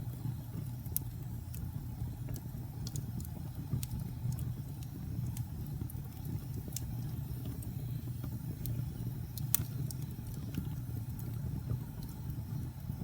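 Wood fire burning in a fireplace: a steady low rumble of the flames, with scattered sharp crackles and pops. The loudest pop comes about nine and a half seconds in.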